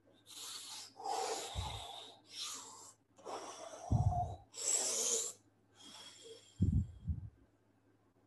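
A man blowing short puffs of air through puffed cheeks and pursed lips, about seven puffs a little under a second apart, imitating a working bellows. A few low pops of breath strike the microphone, two of them together near the end.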